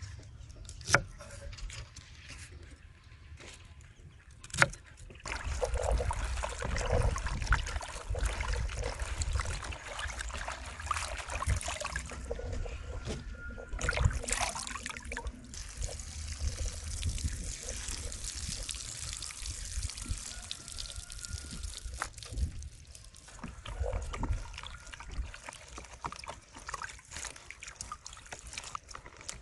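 Two sharp knife chops on a cutting board in the first few seconds, then hands swishing leafy greens, green onions and chillies in a plastic basin of water: uneven sloshing, splashing and trickling as the vegetables are stirred, lifted and dripped.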